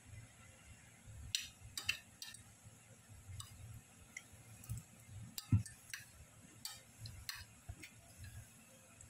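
A spatula stirring sifted flour in a stainless-steel bowl: soft scraping with scattered irregular clicks and taps against the bowl.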